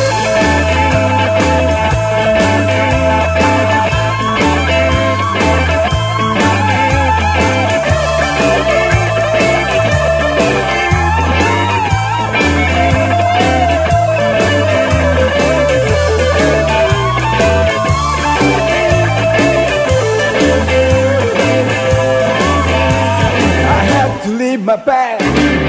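Background rock music with guitar over a steady drum beat. The low end and beat drop out briefly near the end.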